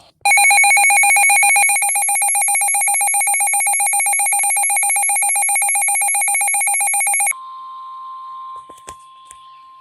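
Emergency alert tone: a loud, rapidly pulsing electronic ringing for about seven seconds that cuts off sharply. A faint steady tone follows.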